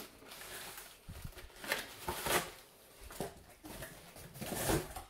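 Cardboard shipping box being opened and a boxed action figure slid out of it: several short scraping rustles of cardboard, the loudest about two seconds in and near the end.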